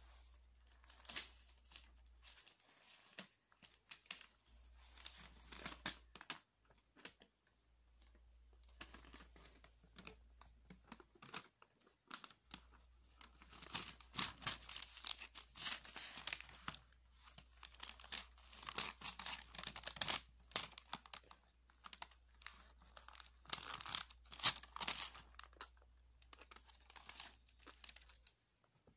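Notebook paper crinkling and tearing in irregular bursts as a baby grabs and pulls at the pages of a spiral-bound notebook.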